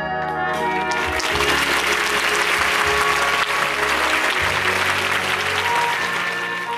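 Theatre audience applauding over the musical's curtain-call music. The clapping swells about a second in and thins out near the end, while the music carries on underneath.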